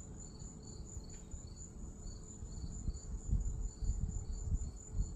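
Crickets chirping in a steady, even rhythm, about three chirps a second, with a few low handling thumps in the second half.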